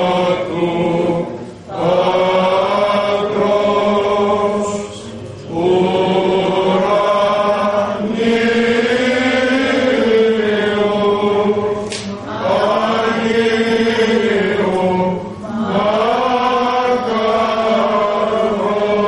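Byzantine chant: male voices singing a slow, melismatic Vespers hymn over a low held note (the ison). The phrases are separated by short breaks for breath.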